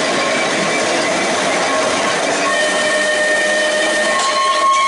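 Manx Electric Railway car rolling slowly past on narrow-gauge track: a steady rumble and rush of wheels on rail, with several thin high squealing tones from the wheels. The squeal grows stronger from about halfway and is loudest near the end.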